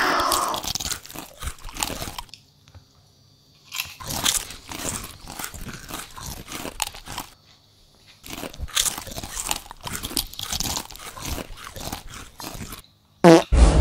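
Loud crunching and chewing of potato chips close to the microphone, in three spells broken by short pauses. A falling swoosh sound effect opens it.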